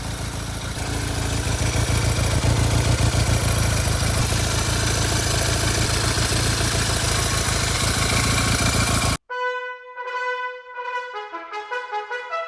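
Honda SL175 parallel-twin motorcycle engine running, a dense rapid pulsing with a strong low rumble that builds over the first couple of seconds. It cuts off abruptly about nine seconds in, and brass music with held notes follows.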